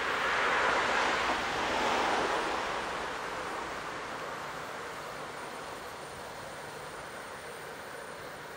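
DR class 112 (V100) diesel-hydraulic locomotive running under load as it approaches, hauling a dead steam locomotive: a steady engine and train rumble, loudest in the first two seconds, then slowly fading.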